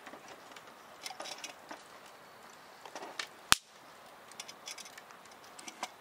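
Wood fire crackling with scattered small pops over a faint hiss, and one sharp, loud click about three and a half seconds in.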